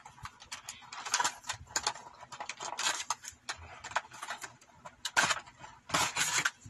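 Packaging being handled while a wireless mouse is unboxed: crinkling plastic and rustling with quick clicks. The louder bursts come about a second in, around three seconds, and near the end.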